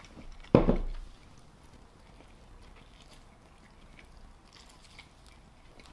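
A hot sauce bottle set down on the table with a single thump about half a second in, then faint biting and chewing of a cheesesteak sandwich.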